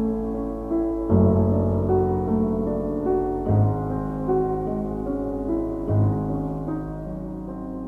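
Background film score led by piano: held chords with low bass notes struck every second or two, fading toward the end.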